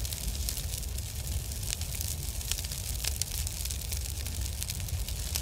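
Fire sound effect: a steady low rumble with many sharp crackles.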